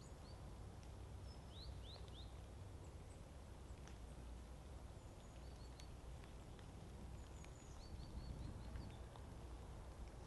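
Faint rural outdoor ambience: a low steady rumble with short bird chirps scattered throughout.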